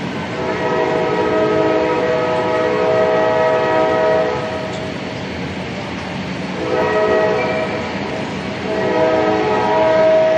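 Model railroad diesel locomotive horn, a multi-note chord sounded as a long blast, a short blast and then another long blast near the end, over a steady rumble of running trains.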